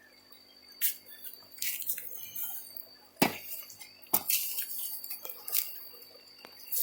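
Irregular scraping and rustling of digging through soil in a potato container, with two sharp knocks about three and four seconds in.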